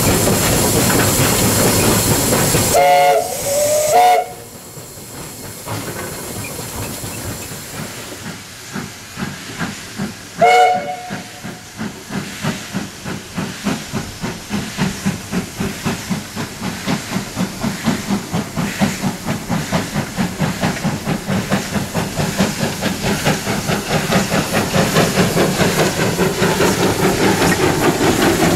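Ng15 two-foot gauge steam locomotive: a loud rushing hiss, then two short whistle toots about three seconds in and another toot about ten seconds in. After that its exhaust chuffs start slowly and quicken steadily, growing louder as the engine gets the train under way.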